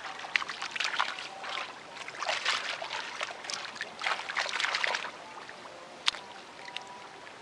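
Hands splashing in shallow muddy ditch water while groping for fish, in quick, irregular splashes for about the first five seconds, then quieter, with one sharp click about six seconds in.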